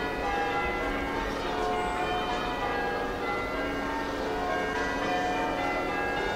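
Church bells ringing changes: a steady run of overlapping bell strokes, one after another.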